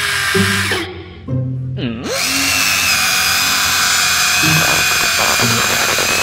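Huina remote-control toy excavator's electric motors whining steadily as its arm and bucket lift a toy vehicle out of the sand, starting about two seconds in, with children's background music.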